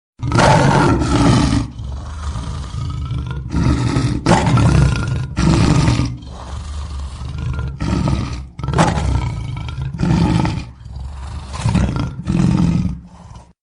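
Lion roaring: a run of about ten loud, rough roars, one every second or so, with lower continuous rumbling between them. It starts abruptly and cuts off abruptly.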